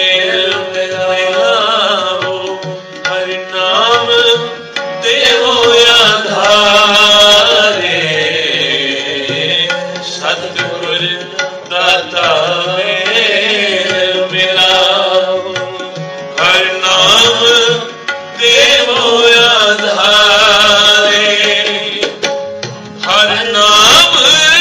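Sikh kirtan: a male voice sings a devotional hymn in long, gliding phrases over sustained harmonium chords, with tabla keeping the rhythm.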